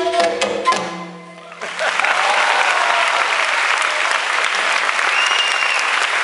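Final strokes of tabla ending a Hindustani classical piece, a low drum tone fading away, then an audience applauding from just under two seconds in.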